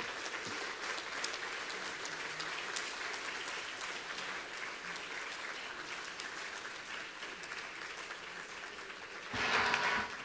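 Audience applauding: a steady clatter of many hands clapping that eases slightly, with a brief louder swell near the end.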